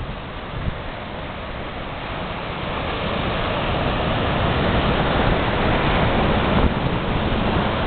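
Ocean surf breaking and washing up a sandy beach, a steady rush of water that grows louder over the first few seconds.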